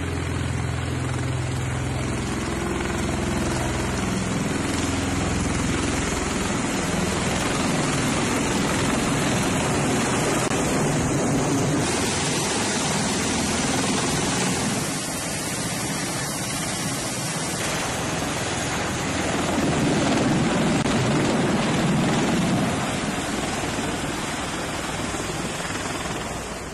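V-22 Osprey tiltrotor's rotors and turboshaft engines running near the carrier's flight deck: a steady, heavy rotor and engine noise.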